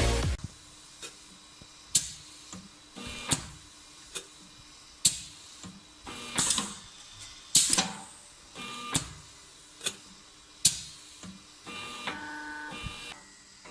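An СМ-228РО-824 automatic cut-to-length and hole-burning machine with a rotary knife, running its cycle. Sharp mechanical clicks come roughly once a second, between short whirs of the feed motor. A longer whine comes near the end.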